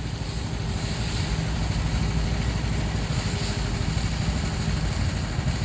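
Heavy diesel engine of a bitumen sprayer lorry running steadily, growing a little louder over the first couple of seconds.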